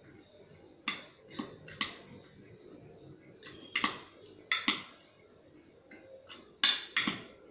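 Spoon clicking and scraping against a bowl as a chopped vegetable salad is mixed: about ten irregular clicks with softer stirring between them.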